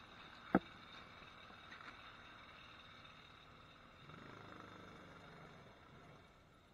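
A single sharp click about half a second in, then a faint small engine running out of sight, a little louder between about four and five and a half seconds in.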